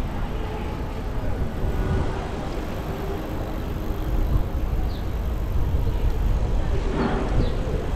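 Wind rumbling on the microphone of a camera riding on a moving bicycle, a steady low noise that swells and eases, along with tyre and road noise.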